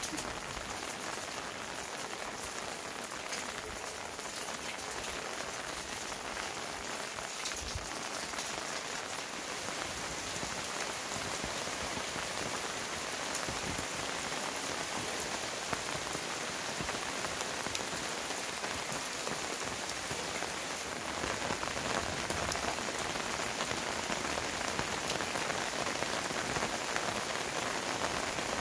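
Heavy rain falling steadily: a dense hiss with many small drop taps on surfaces, growing a little louder about two-thirds of the way through.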